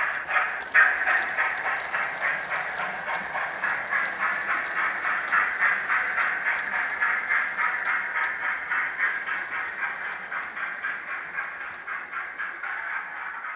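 Model train running past on its layout track with a fast rhythmic clatter that fades steadily as it moves away.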